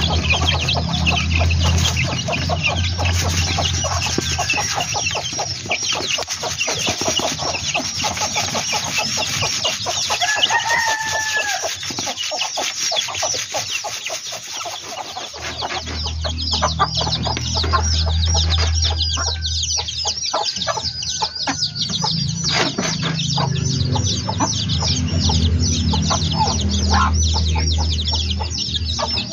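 A flock of Indonesian native kampung chickens clucking and chirping continuously, many birds calling over one another.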